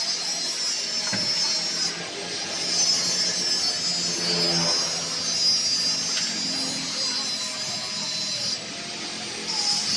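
A spanner working the spring bolts of a motorcycle's wet clutch pressure plate: faint metal clicks and scraping, over a steady high hiss that drops out briefly near the end.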